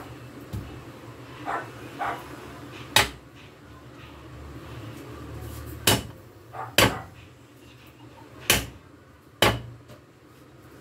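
A cleaver striking a wooden chopping board as garlic is chopped: five sharp knocks at uneven intervals, starting about three seconds in.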